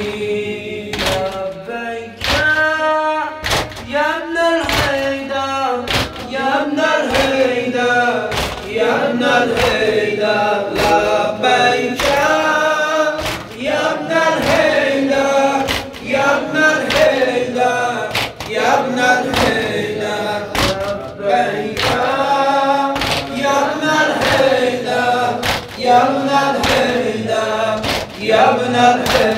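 Group of men chanting a Shia mourning noha in unison, led by one voice, with regular chest-beating (matam) thuds keeping the beat.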